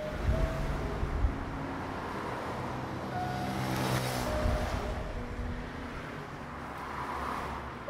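Road traffic noise from passing cars, swelling about halfway through as a vehicle goes by, with faint piano notes underneath.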